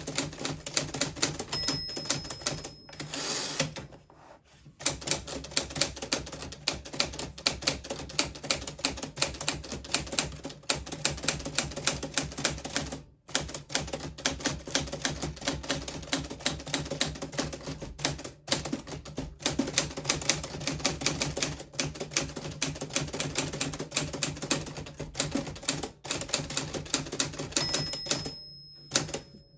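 A 1940s Smith Corona Silent manual typewriter being typed on steadily, with rapid clacking keystrokes. A short bell ring comes about a second and a half in, followed by a longer rasping stretch as the carriage is returned. A second bell ring comes near the end.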